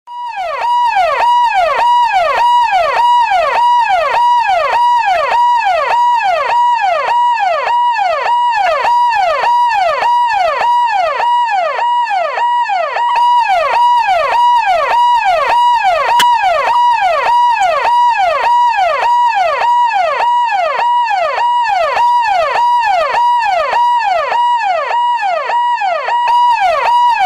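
Police siren ringtone, as used by the Bihar police, sounding loud and continuously. It repeats in quick even cycles, each a held high note that then drops sharply in pitch.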